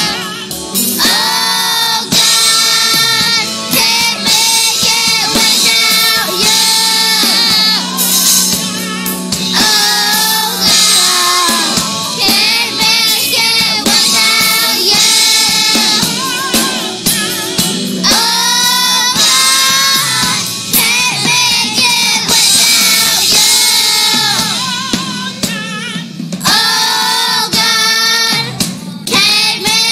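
Children's choir singing a song in unison into microphones, with keyboard accompaniment underneath.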